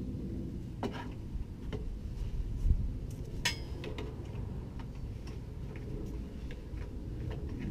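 Metal exhaust pipe and its fittings clinking and tapping as they are held up and fitted under a Nissan 240SX: a few scattered light clinks, one sharper about three and a half seconds in, and a dull bump a little before it, over a low background rumble.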